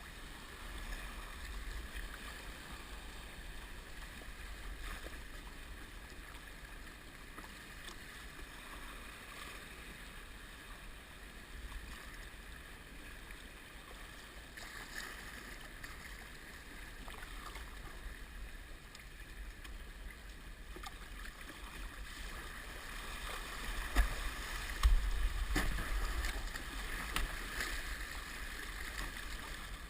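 Sea water splashing and sloshing around a kayak, picked up by a head-mounted GoPro HD Hero2 in its waterproof housing. A few low bumps come near the end and are the loudest part.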